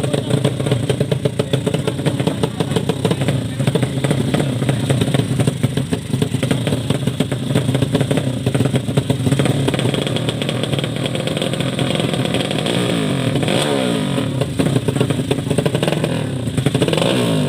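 Drag-racing underbone motorcycle engine running hard with a rapid, rattly firing beat. Its revs climb twice in the second half.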